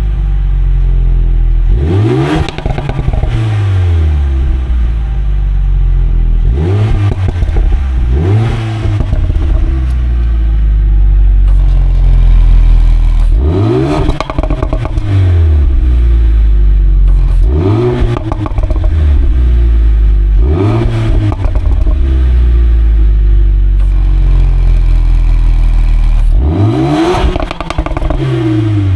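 Mercedes-AMG A35's turbocharged 2-litre four-cylinder (M260) on its stock exhaust, idling and being blipped about seven times. Each blip revs sharply up and falls back to idle with crackling on the way down.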